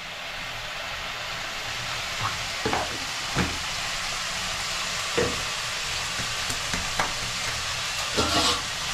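Pieces of meat frying in a wok on a gas stove, a steady sizzle with a few sharp clinks and knocks of a spoon against the pan, several together near the end.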